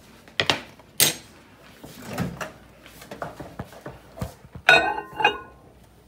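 A ceramic mug being handled and put into a microwave: two sharp knocks in the first second, light taps and rattles, then two ringing clinks near the end as the mug meets the glass turntable.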